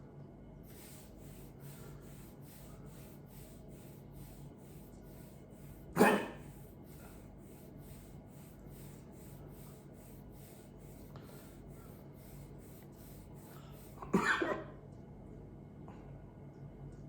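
A person hiccuping twice, about eight seconds apart: one short, sharp hiccup, then a longer, broken one near the end.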